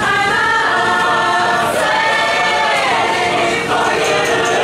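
Large mixed choir of men and women singing together, coming in loud at once and holding long notes, with the pitch bending down around the middle.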